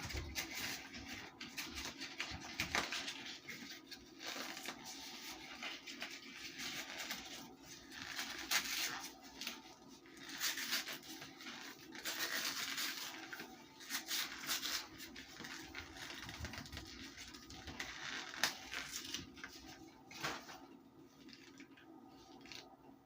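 Close-up crunching and chewing of baked cornstarch chunks: irregular dry crackles and crumbling bursts, over a faint steady hum.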